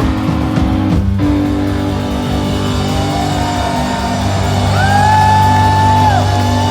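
Live rock band playing: steady bass and drum beat under a guitar, with long held notes that slide up and down in pitch from about three seconds in.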